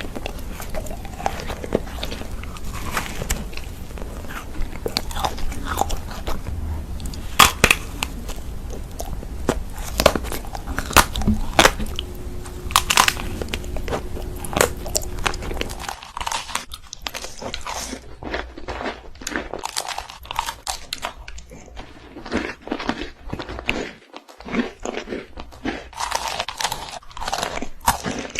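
A person biting and chewing crunchy food: many sharp crackles in quick, irregular succession. A low background rumble cuts out about halfway through while the eating goes on.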